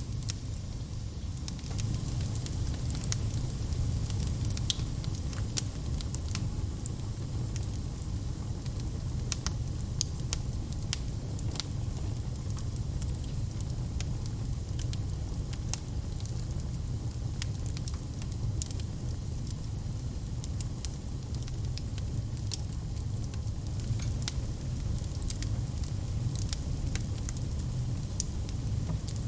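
Wood fire burning, with a steady low rumble of flames and frequent sharp crackles and pops at irregular intervals.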